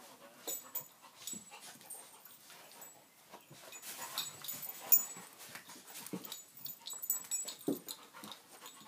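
A dog making short, scattered sounds, mixed with small clicks and knocks; the sharpest knock comes about five seconds in.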